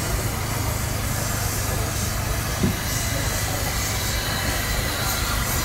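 Stanley steam car standing fired up, giving a steady low rumble with an even hiss of steam.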